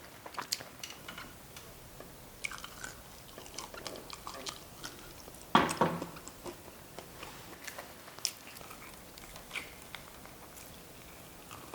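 Close-up chewing and wet mouth sounds of someone eating roast chicken with honey, with many small scattered clicks. A louder brief sound comes about halfway through.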